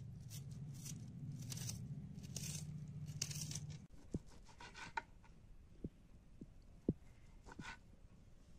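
A kitchen knife slicing a crisp onion held in the hand, a few scraping cuts over a low steady hum that stops about four seconds in. Then the knife cuts cooked chicken on a cutting board, the blade tapping the board sharply about once a second, four times.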